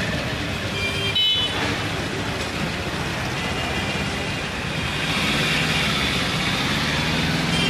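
Street traffic: motor vehicles running past in a steady rumble, with a brief high horn-like tone about a second in.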